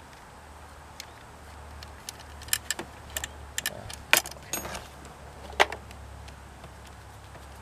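Light metallic clicks and taps of small battery-terminal hardware, cables and hand tools being handled while a battery's leads are connected, a cluster of sharp ticks from about two and a half to six seconds in, the loudest near four and five and a half seconds in, over a steady low hum.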